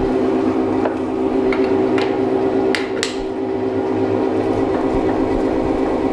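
Elliott 10M metal-shaping machine running with a steady motor hum, and a few sharp clicks in the first half.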